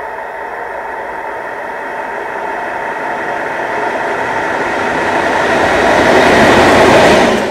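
DB class 232 'Ludmilla' diesel locomotive approaching and passing close by, its 16-cylinder Kolomna diesel engine running with a steady drone. The sound swells as the locomotive nears, is loudest about six to seven seconds in, and breaks off abruptly at the very end.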